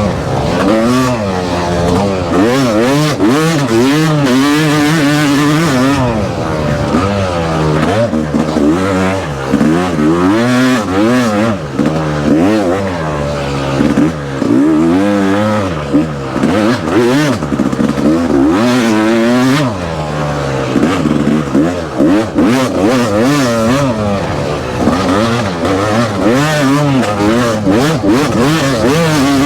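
Yamaha YZF four-stroke dirt bike engine being ridden hard, the throttle constantly opened and closed so the engine note rises and falls about once a second, with a few brief chops in the sound.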